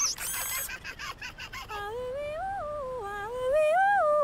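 A young woman's voice humming a wordless, lilting tune, its pitch gliding up and down in smooth steps. It starts a little under halfway in, after a few short clicks and a brief high ringing effect.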